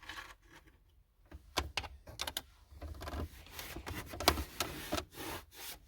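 Irregular clicks, taps and scraping as small loose nuts and parts are fished out from inside a car's dashboard, with one sharper knock about four seconds in.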